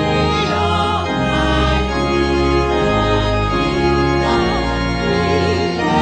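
Organ playing slow, held chords, with wavering singing voices above it.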